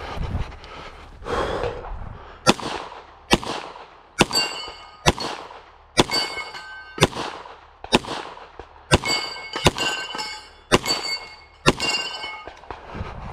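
Handgun shots fired at a steady pace, about one a second, starting a couple of seconds in. Many are followed by the short ring of steel targets being hit.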